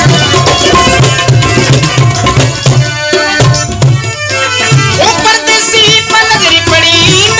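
Instrumental folk music interlude from a saang recording: a steady hand-drum rhythm under a held melody instrument, with a wavering melodic line entering about five seconds in.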